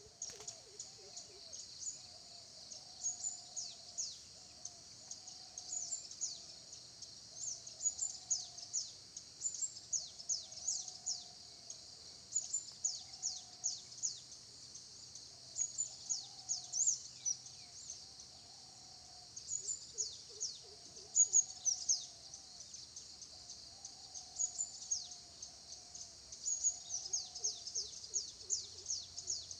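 Birds calling: clusters of quick, high, falling chirps every second or two, over a softer, lower wavering call.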